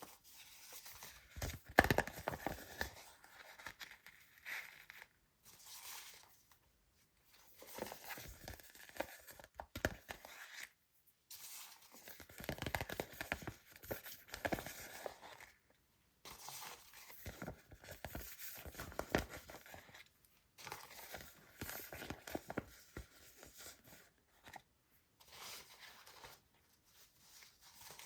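Plastic toy packaging being torn open and crinkled by hand, in repeated crackling bouts with short pauses between them.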